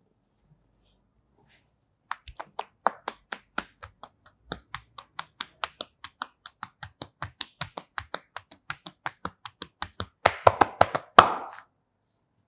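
Percussive hand massage on a person's back: hands striking in a steady rhythm of sharp claps, about four or five a second, breaking into a faster, louder flurry near the end and then stopping suddenly.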